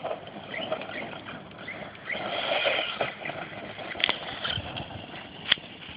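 Redcat Earthquake 8E electric RC truck running over rough ground, a noisy mix of motor and tyres that grows louder about two seconds in, with two sharp knocks in the second half.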